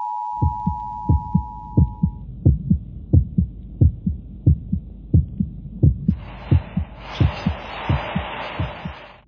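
Heartbeat sound effect, low thumps in lub-dub pairs repeating a little faster than once a second. For the first two seconds it plays under the Emergency Broadcast System attention tone, two steady high tones together, which then cuts off. From about six seconds in a rushing hiss swells over the beat and stops at the end.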